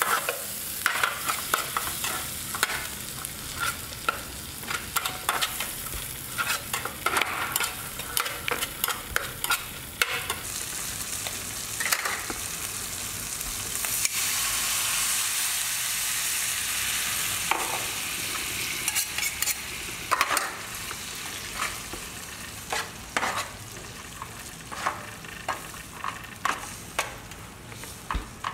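Spatula scraping and knocking against a frying pan while stir-frying in hot oil, with a sizzle underneath. About halfway through, water poured into the hot pan sets off a loud steady hiss; after that the stirring goes on more quietly in the simmering liquid, with occasional scrapes.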